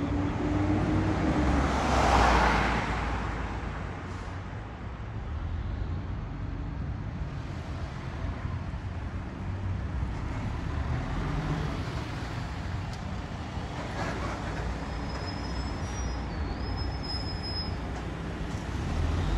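Road traffic: cars driving past close by, loudest about two seconds in, over the steady low rumble of a fire engine's diesel engine as it pulls out.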